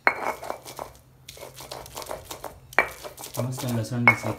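A hand-held stone pestle pounding and rubbing garlic and red chillies on a rough stone grinding slab: quick scraping strokes, with three sharp stone-on-stone knocks that ring briefly, one at the start, one near the middle and one near the end.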